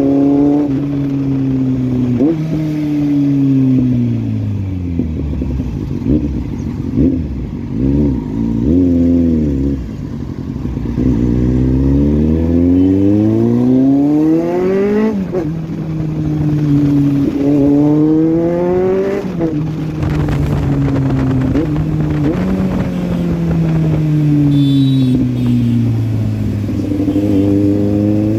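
Kawasaki inline-four sport motorcycle engine heard from the saddle, revved up and let back down again and again. Its pitch climbs in long rising sweeps, twice around the middle cutting sharply back down, between steadier lower-revving stretches.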